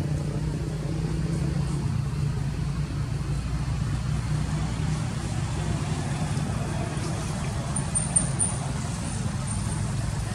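Steady low hum of a running motor vehicle, with a continuous even rumble.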